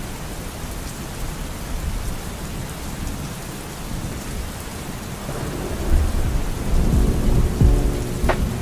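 Steady rain falling, with a low rumble of thunder building from about six seconds in. A soft melody starts faintly near the end.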